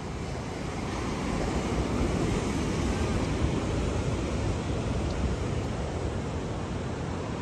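Ocean surf washing onto a sandy beach, mixed with wind rumbling on the microphone; the noise swells louder after about a second and eases off toward the end.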